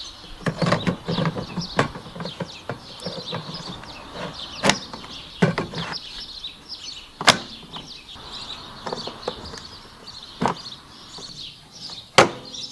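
Hard plastic clicks and knocks as two battery packs are slotted into the battery compartment of an Einhell GE-CM 43 Li M cordless lawn mower. There are a handful of sharp clicks several seconds apart, the loudest near the end, with birds chirping throughout.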